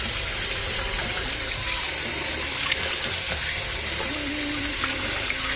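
Tap water running steadily into a sink, filling it to soak hand-washed laundry in fabric softener.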